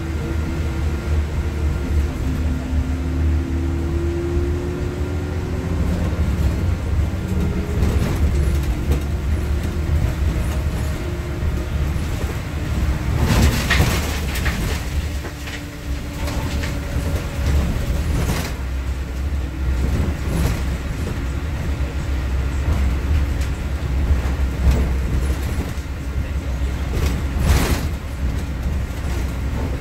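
Inside the cabin of a Nova Bus LFS city bus on the move: a steady low engine and road rumble, with a faint whine that climbs in pitch over the first several seconds as the bus gathers speed. A few short rattles or knocks cut through, the loudest about 13 seconds in and again near the end.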